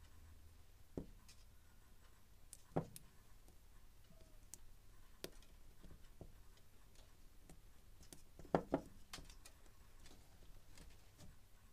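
Small clicks and knocks as a car ignition coil and a thin wire are handled and the coil is set down on a bench. There is a sharper knock about 3 s in and a close double knock about 8.5 s in, with faint ticks between.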